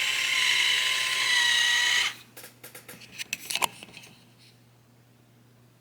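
Jada Toys remote-control Godzilla figure switched on: a loud, buzzy, drill-like sound lasting about two seconds, then scattered light clicks from the figure.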